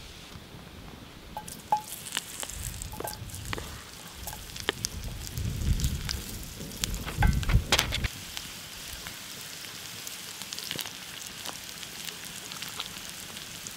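Hot oil sizzling in a cast iron skillet as cut potatoes are dropped in and turned with a wooden spoon. Sharp clacks of potato and spoon against the pan come over the first eight seconds or so, then a steady sizzle.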